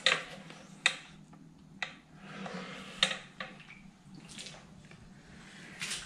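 Wooden wardrobe doors being handled: a handful of sharp knocks and clacks spread over the first three seconds, with faint rustling between them.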